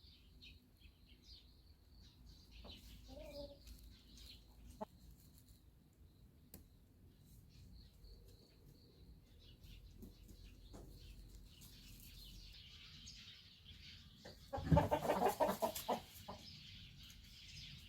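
Ogol chickens in a coop: faint small-bird chirping throughout, then near the end a sudden loud burst of chicken clucking lasting about a second and a half.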